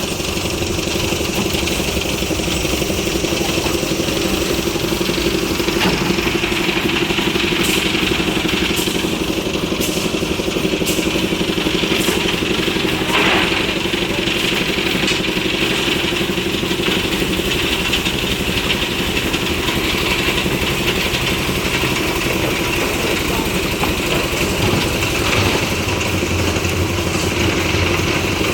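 Engine of concrete-slab site machinery running steadily at an even speed, with a few light clicks or knocks about a third of the way in.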